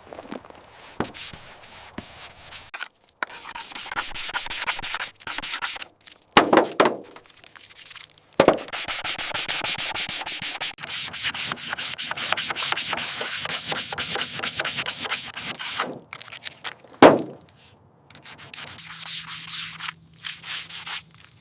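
Sanding: a steady, rapid rasping rub that runs in long stretches with short pauses, broken by two loud knocks, one about a third of the way in and one near the end.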